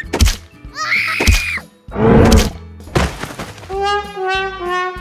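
Cartoon fight sound effects: several sharp hits, a brief wail and a loud crash as the mammoth is struck down, followed about three and a half seconds in by a slow falling run of musical notes.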